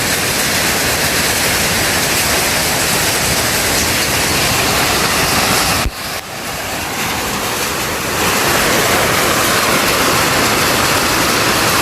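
Heavy downpour of rain and hail, a dense steady hiss. It drops suddenly about six seconds in and builds back over the next two seconds.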